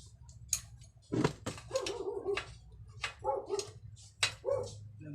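A dog barking and yipping several times in short calls, mixed with sharp knocks.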